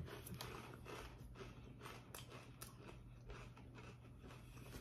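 Faint chewing of a Lay's Classic potato chip with the mouth closed, a few soft crisp clicks over a low steady hum.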